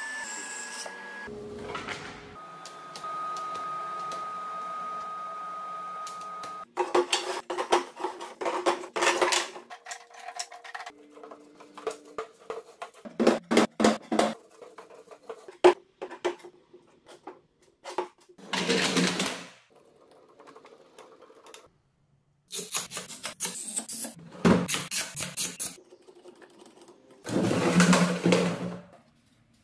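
A run of woodshop sounds. For the first several seconds a Laguna bandsaw runs steadily with a held whine. Then come short runs of clattering knocks as wooden boards are handled, set down and knocked together, broken by a few louder noisy bursts.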